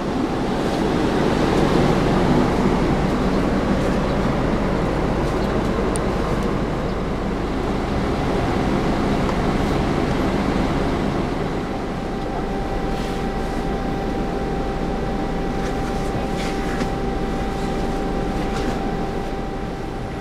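Steady running noise inside a coach bus's passenger cabin; about twelve seconds in, a steady high whine joins it.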